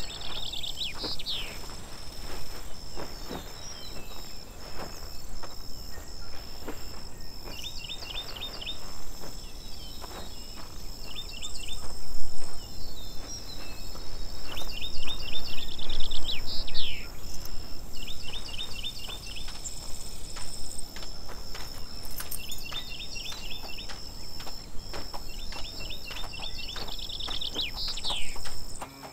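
Birds singing, a short rapid run of notes repeated every couple of seconds, over a steady high insect drone. Scattered knocks, clinks and rustles come from horses being saddled, louder in two spells near the middle.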